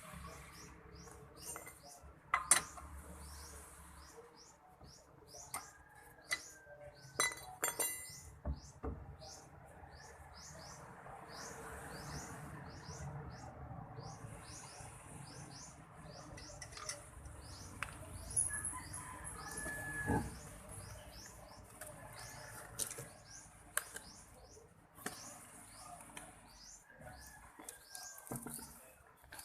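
Birds chirping: many quick, high, falling chirps repeating steadily, with a few sharp clicks and knocks mixed in.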